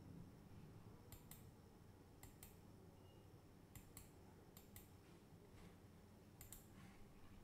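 Faint clicks of computer controls in about five pairs, each pair a fraction of a second apart, over quiet room tone.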